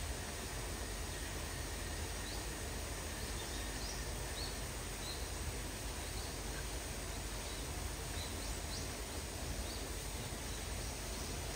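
Steady outdoor background noise with faint, short high chirps scattered through the middle.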